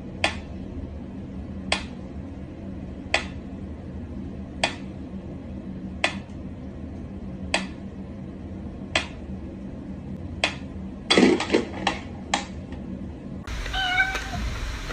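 Mechanical pendulum metronome ticking slowly and evenly, about one tick every second and a half. Near the end comes a quick flurry of louder, irregular clicks and knocks.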